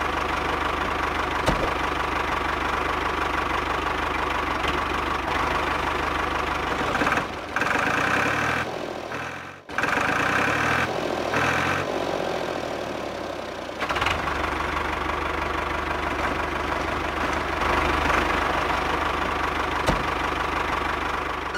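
Steady chugging engine sound of a tractor running at idle. It dips and breaks off briefly about seven to ten seconds in, then runs on evenly.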